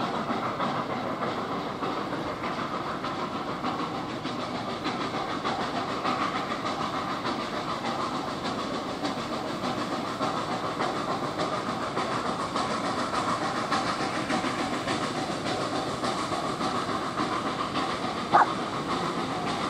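Heritage railway train approaching unseen behind trees: a steady running noise. A single brief sharp sound stands out near the end.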